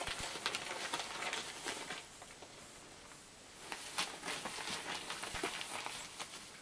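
A ferret scrabbling through flexible plastic dryer exhaust tubing: a rapid patter of claws with crinkling and rustling of the ducting, in two spells with a quieter pause between them.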